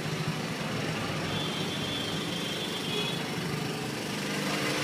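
Car engine running with steady road and traffic noise, heard from a moving car.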